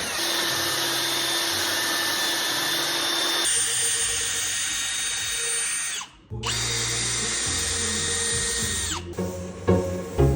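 A power tool motor running steadily with a high whine, in segments that change abruptly about three and a half and six seconds in. Rhythmic beats come in near the end.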